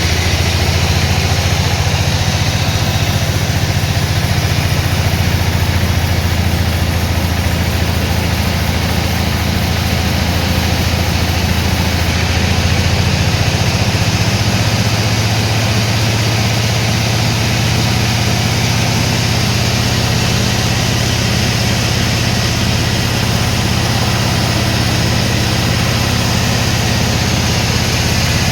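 Sawmill engine running steadily, its low note shifting slightly about halfway through.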